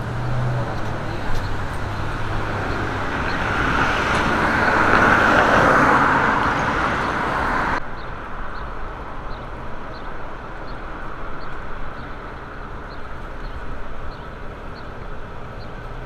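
Road traffic: a vehicle goes past, rising to its loudest about a third of the way in. The sound then drops suddenly about halfway through to a quieter, steady background of traffic noise.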